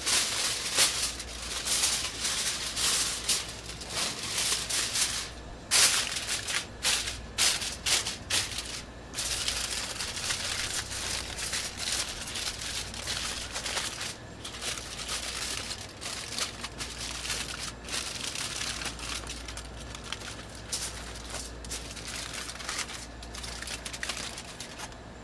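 Aluminium foil crinkling and crackling as hands fold and crimp it into a packet around a rack of ribs. The crinkling is loudest in the first nine seconds or so and softer after that.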